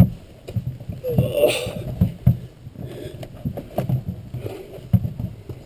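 Footfalls and knocks of a skin-on-frame canoe being carried overhead on a portage, heard from inside the upturned hull, with the carrier grunting from the effort about a second and a half in.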